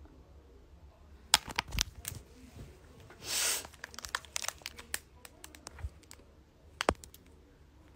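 Handling noise of a phone held close to its microphone: scattered sharp taps and clicks, the kind that fingers make tapping and scrolling on the screen, with a brief hiss of rubbing about halfway through.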